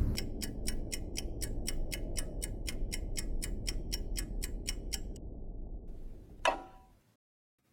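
Soundtrack of an animated logo intro: rapid, even ticking, about five ticks a second, over a low drone that slowly fades; the ticking stops about five seconds in. Near the end a single sharp ringing hit sounds, then it falls silent.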